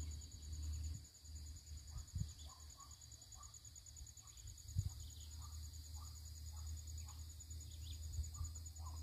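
An insect trilling steadily in a high, fast-pulsing tone, over a low rumble, with faint scattered chirps and two soft knocks, about two and five seconds in.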